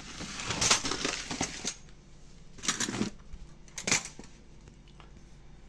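Crinkly rustling and crackling as an artificial grass offcut is handled: one long rustle in the first second and a half, then two short crackles about three and four seconds in.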